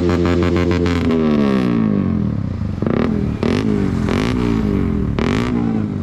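Single-cylinder sport motorcycle with an aftermarket exhaust revved on the stand. It is held at high revs for about a second, drops, then gets about four short throttle blips.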